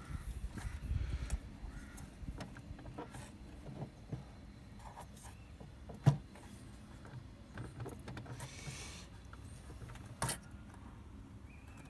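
Light plastic clicks and rattles from hands working the headlight's H7 dipped-beam bulb connector and retaining clip, with a sharp click about six seconds in and another near the end.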